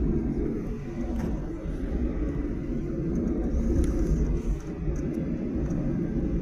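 Steady low rumble inside the cabin of a Boeing 737-800 taxiing after landing, its engines at idle.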